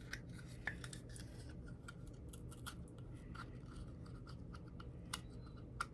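Faint clicks and scratches of fingers working at the cap of a small novelty bottle, trying without success to get it off, over a low steady hum.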